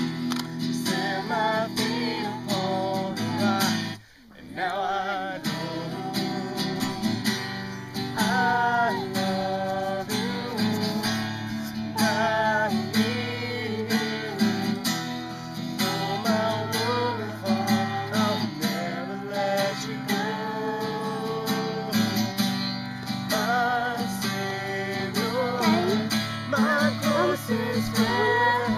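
Acoustic guitar strummed in time under singing of a worship song, with a brief break about four seconds in.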